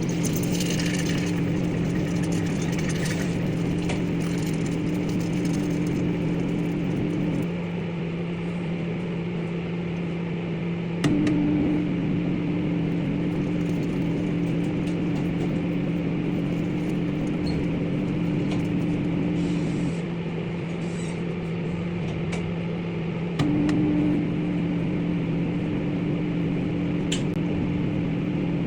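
Microwave oven running with a lollipop inside: a steady low hum, joined by a louder, higher buzz that cuts out about a quarter of the way through, comes back with a click, cuts out again past the middle and returns near the end. The on-off buzz is the magnetron cycling at a reduced power setting.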